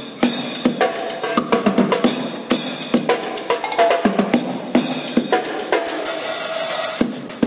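Drum kit mounted on a bike, played in a fast, busy groove of continuous rapid hits.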